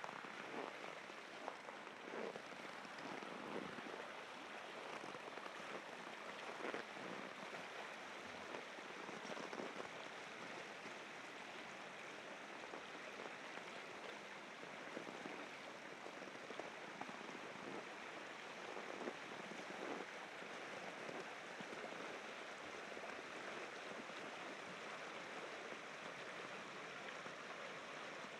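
Steady rushing of river rapids, with occasional short crunches of footsteps in snow.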